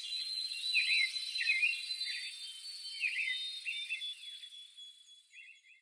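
Outdoor nature ambience: short chirping phrases repeated every second or so over a steady high-pitched insect drone, fading out near the end.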